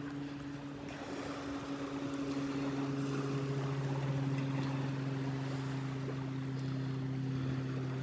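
Motorboat engine droning steadily, a low hum that grows a little louder over the first few seconds and then holds.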